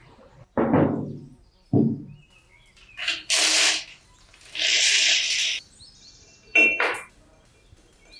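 Two dull knocks, then the crinkle of a wrapper being pulled off a bundle of new steel motorcycle wheel spokes, in two bursts, and a sharp metallic clink of the spokes near the end.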